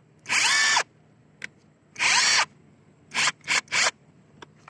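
JLD Tool 48S impact wrench being triggered in short bursts. It gives two half-second runs whose motor whine rises in pitch as it spins up, then three quick blips.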